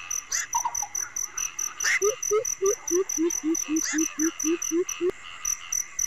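Crickets trilling in fast, even pulses, with a few short higher calls over them. From about two seconds in, an animal gives a run of about a dozen deep hooting notes, some four a second, which stops about a second before the end.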